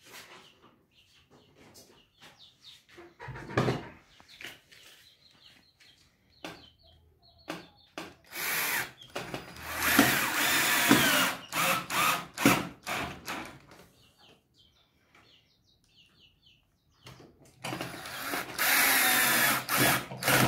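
12-volt cordless drill running into wood in two long stretches: one from about eight seconds in, and another from about seventeen seconds to the end. Its motor pitch wavers under load. Light clicks and knocks come in between.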